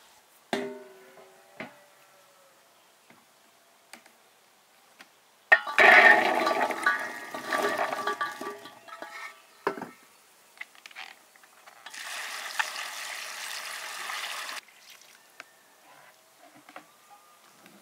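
Water pouring into a container in two goes: a loud, splashing pour of about four seconds, then after a pause a steadier, even pour that stops suddenly. A few light knocks come near the start.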